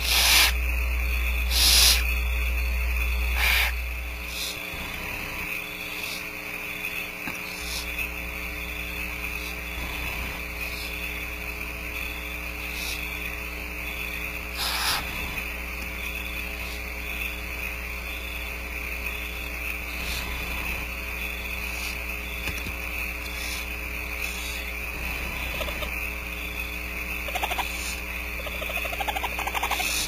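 Barn owls in the nest hissing: a few short raspy hisses, the loudest three in the first few seconds and another about halfway, with fainter ones between and some soft wavering calls near the end. Underneath runs the nest cam's steady electrical hum and high whine.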